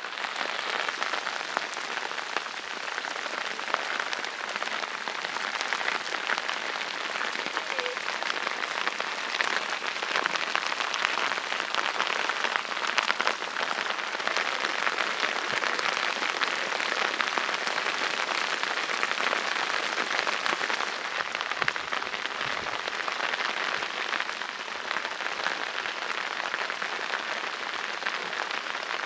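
Steady rain falling on flooded rice paddies: an even hiss made of many fine drop hits.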